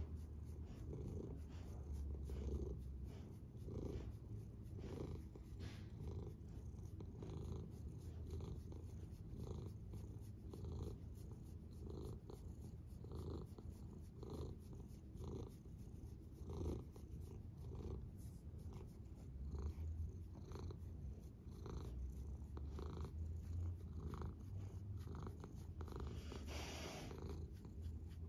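Domestic cat purring steadily while being stroked, the purr swelling and easing in a slow, even rhythm. A brief rustle near the end.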